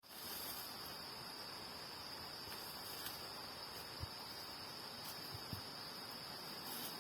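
Insects chirring in one steady, high-pitched drone, with a few faint soft knocks about four and five and a half seconds in.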